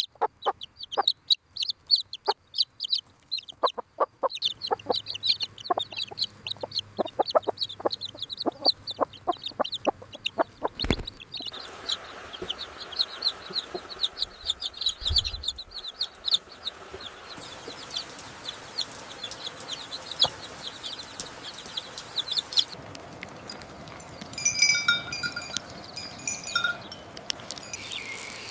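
Chickens clucking and calling, with rapid short sharp sounds through the first ten seconds or so, then a steady background hiss under the calls.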